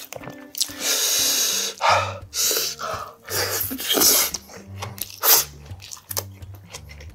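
Several loud, hissy slurps of liquid sipped from a wooden spoon, the longest about a second in and the last a little after the five-second mark.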